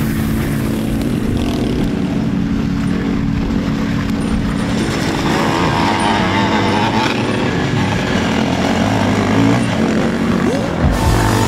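Dirt bike engines revving hard as the bikes work through deep mud, the engine note rising and falling, with a quick rising rev near the end.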